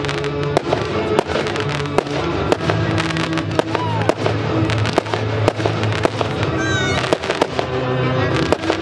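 Aerial firework shells bursting, with frequent sharp bangs and crackles throughout, heard over music.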